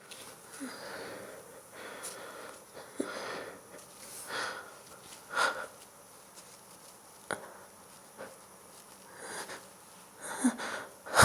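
A woman inducing a sneeze: a run of breathy sniffs and sharp, wheezy gasping breaths, a few with a short voiced catch, coming every second or two. A sudden loud burst comes at the very end.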